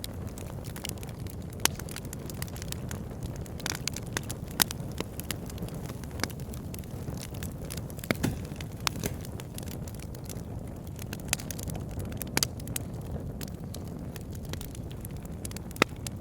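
Wood fire burning in a fireplace: a steady low rush of flames with irregular sharp crackles and pops, a few of them much louder than the rest.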